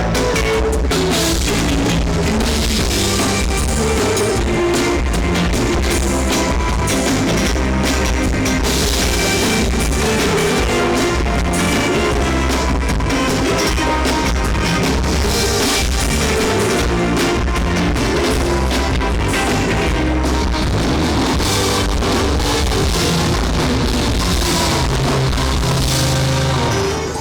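Live rock band playing: drum kit and electric guitars, loud and steady, with little singing. Near the end it drops off sharply.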